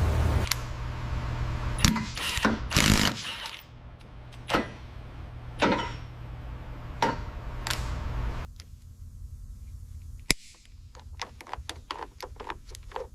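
A series of sharp knocks and clunks over a low steady hum. The hum stops about eight and a half seconds in, leaving lighter, quicker clicks and taps.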